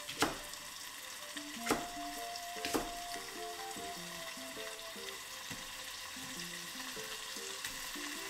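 Three sharp knife strokes chopping through a Japanese long onion onto a wooden cutting board, in the first three seconds, over a steady frying sizzle of chicken pieces in oil in a saucepan.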